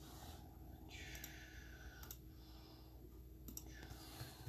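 Faint, scattered keyboard clicks as names are typed in to tag people. A soft rush of noise lasts about a second, starting about a second in.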